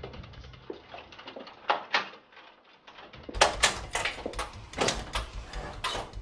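Door sounds: a run of sharp knocks and clicks, sparse at first, then busier and crisper from about three seconds in, as a glass-panelled door is worked and opened.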